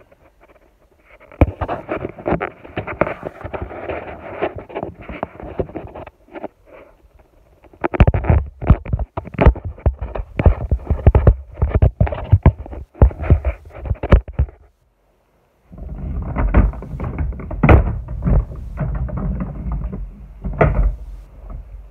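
Repeated clunks, knocks and clattering from handling and shifting workshop gear, with rustling between the knocks; the heaviest knocks come in the second half. No saw is running.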